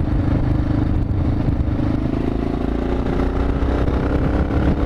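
Yamaha XT 600E's single-cylinder four-stroke engine running steadily under way, its note rising slightly over the last couple of seconds.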